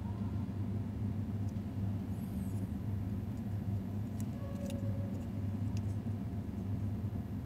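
Steady low background rumble, with a few faint light clicks around the middle.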